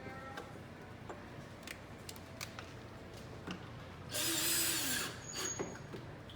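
A few light clicks and taps, then a power drill runs for about a second, driving a fastener into the clock case.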